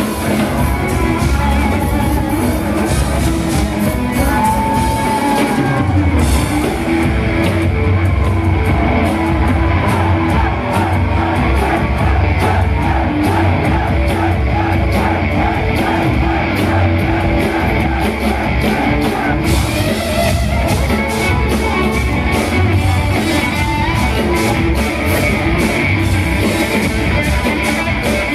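Rock power trio playing live: electric guitar, bass guitar and drum kit, with a lead vocal, heard through the club's PA from the audience.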